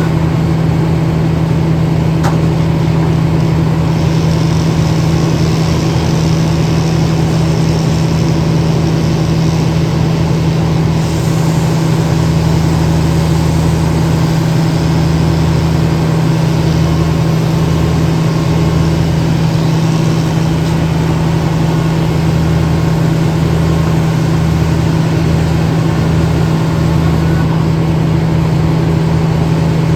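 An engine running steadily at a constant speed, with a strong even hum and a pulsing low rumble beneath it.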